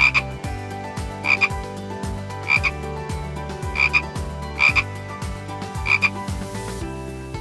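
A frog croaking six times at an even pace, about one call every second and a quarter, each call a short, high double note.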